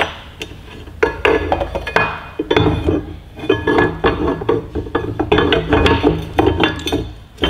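Steel mounting bracket and bolts clinking and knocking as they are handled and fitted against the motorcycle's subframe: a steady run of sharp metallic clinks and knocks.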